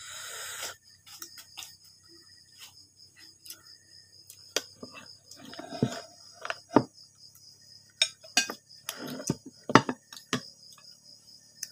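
A spoon and hands clinking and knocking against a ceramic bowl now and then, the sharpest clicks coming in the second half. Under it, steady cricket chirping keeps up throughout.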